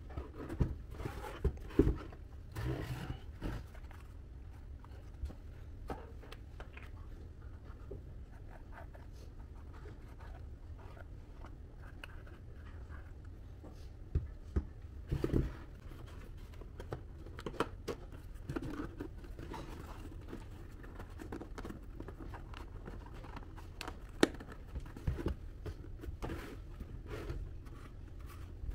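Cardboard pieces being handled and worked: scattered light taps, scrapes and rustles, with a cluster of louder knocks about fifteen seconds in and a sharp click near the end, over a steady low hum.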